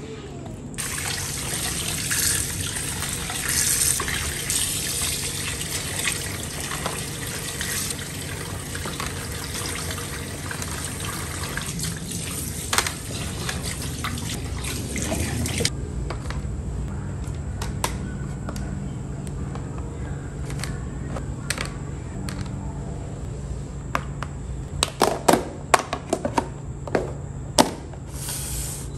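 Tap water running steadily into a plastic basin as whole fish are rinsed by hand, cutting off abruptly about halfway through. Later comes a cluster of sharp plastic knocks and clicks as plastic fish storage containers are set down and handled.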